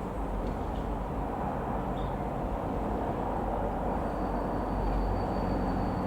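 Bell 206 JetRanger II helicopter running steadily, its engine and rotor noise constant. A thin high whine joins it about two-thirds of the way through.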